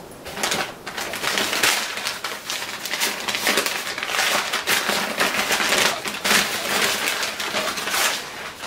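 Crumpled packing paper crackling and rustling as it is handled and pulled out of a cardboard box: a dense, continuous run of crackles.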